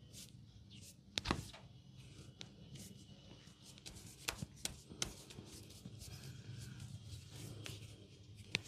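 Hands working on bare skin and hair during a massage, with a handful of sharp clicks scattered through it, the loudest about a second in.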